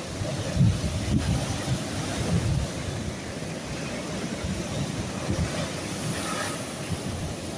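Sea waves washing in with a steady hiss, with wind buffeting the microphone in irregular low gusts.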